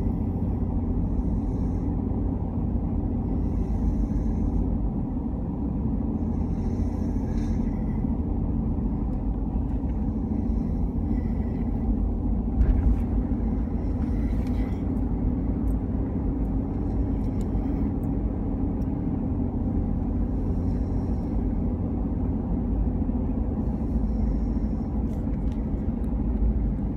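Sleeping children snoring, a breath every few seconds, over a steady low rumble. There is a brief sharp click about halfway through.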